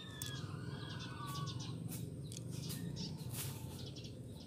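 Birds chirping in the background, with a few light clicks as the new rotary oil seal and bushing are pressed onto the crankshaft, over a steady low hum.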